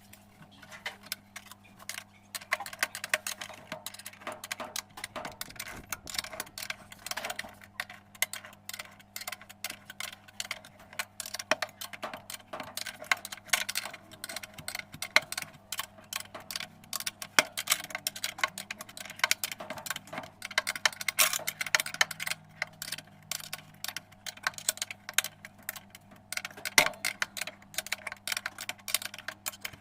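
Small metal parts and tools clinking and tapping irregularly while a washing machine's agitator and transmission mechanism is reassembled by hand, over a steady low hum.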